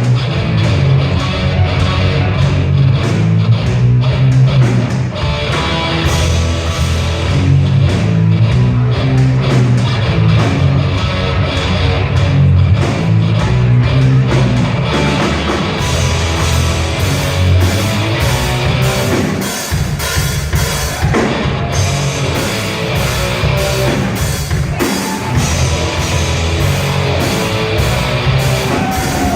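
Hard rock song with distorted electric guitars, bass and a driving drum kit playing steadily and loud.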